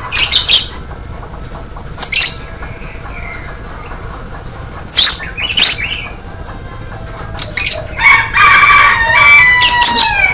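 Bird sounds: several short, loud flurries, and from about eight seconds in a harsh call lasting about two seconds whose pitch falls at the end.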